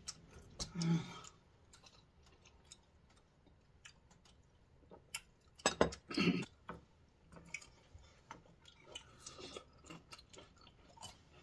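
People chewing raw fruit, with scattered small clicks and knocks of forks and dishes.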